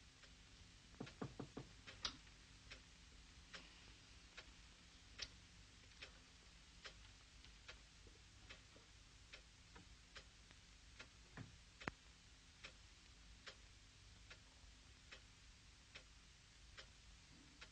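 A clock ticking faintly and steadily, about five ticks every four seconds, with a few extra clicks in the first couple of seconds over a low hum.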